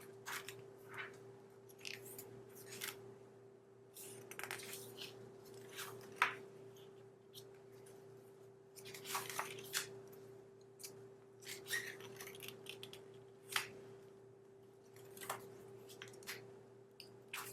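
Pages of a spiral-bound junk journal being turned and handled: scattered short, soft rustles and crinkles of paper and vellum sheets. A faint steady hum runs underneath.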